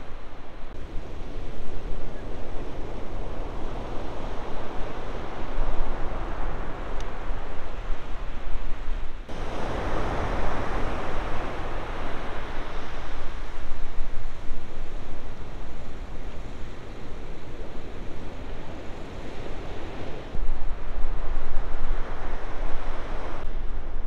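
Ocean surf breaking and washing, a steady rushing noise, with wind rumbling on the microphone. The sound changes abruptly twice, about nine and twenty seconds in.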